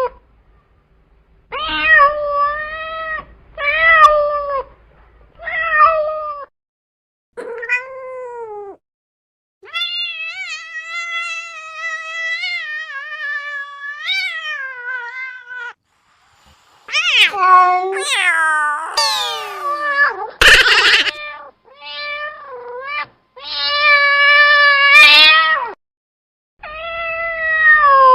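Cats and kittens meowing: a string of separate meows, some short and some drawn out for several seconds, with brief silent gaps between them. About twenty seconds in there is a short, rough, noisy burst among the meows.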